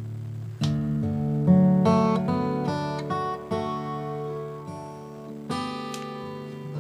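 Background music: acoustic guitar playing chords, each struck sharply and left to ring out.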